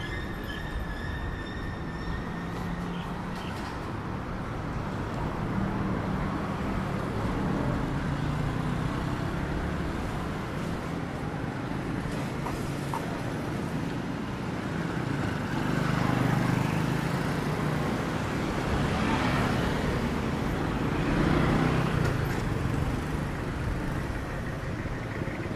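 Street traffic: a steady wash of vehicle engines and tyres, with vehicles passing close and growing louder a couple of times in the later part.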